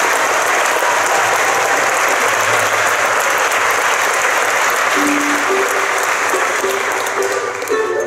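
Audience applauding steadily. From about five seconds in, a few plucked string notes start under the applause, which thins near the end.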